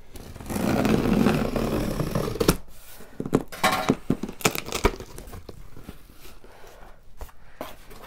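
Packing tape on a cardboard box being cut open with scissors: a long ripping stretch over the first couple of seconds, then a run of sharp cardboard knocks and rustles as the box top is handled.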